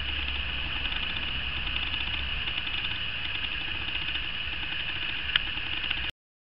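Steady outdoor background ambience: a low hum under a continuous high-pitched hiss or whir, with one short click a little after five seconds in. The sound then cuts off abruptly to dead silence about six seconds in.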